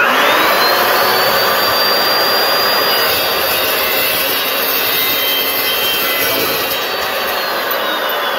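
Evolution R355CPS 14-inch metal-cutting chop saw starting up with a quickly rising whine. Its carbide-tipped blade then cuts through a round steel tube with a harsh, steady grinding noise. About seven seconds in, the motor's whine starts to fall as the saw winds down.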